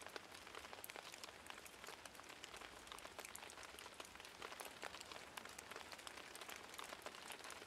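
Faint light rain pattering: scattered small drop ticks over a soft steady hiss.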